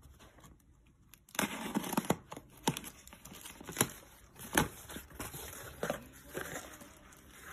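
Packing tape on a small cardboard box being slit with a utility knife and torn, and the cardboard flaps pulled open, a run of tearing and rustling with several sharp clicks, starting about a second in.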